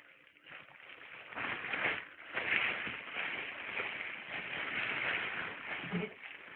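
A large plastic bag rustling and crinkling in uneven swells as taped parcels of salted fish are packed into it.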